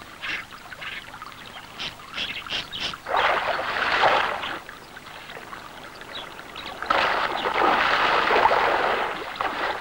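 Hooked salmon splashing at the surface of the river, in two bouts: one about three seconds in and a longer one from about seven seconds in.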